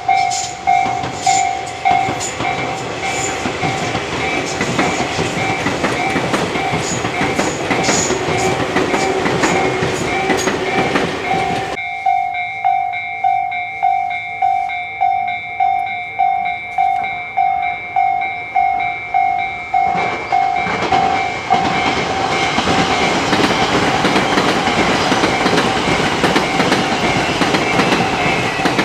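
Japanese level-crossing alarm ringing its repeating electronic "kan-kan" while Tobu electric trains pass. A train rumbles and clacks over the rail joints for about the first twelve seconds, the crossing alarm then rings on its own for about eight seconds, and another train runs through for the rest.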